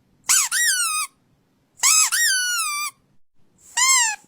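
A squeaky toy squeezed three times, each squeak jumping up in pitch and then sliding down, the first two about a second long and the last one shorter.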